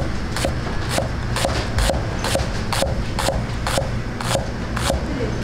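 Metal spatula striking a wok about twice a second while fried rice is tossed. Each strike gives a short ring over the steady rumble of a gas wok burner.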